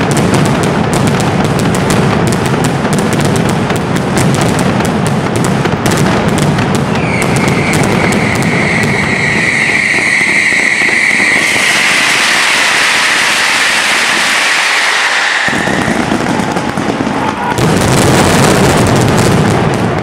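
Mascletà firecrackers going off in a dense, continuous barrage of bangs. A high whistling tone rides over the bangs for several seconds in the middle, and the barrage grows louder and deeper again near the end.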